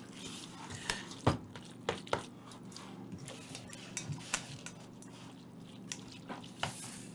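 Faint, scattered clinks and knocks of kitchen utensils against a bowl and dishes while macaroni salad is mixed, over a low steady hum.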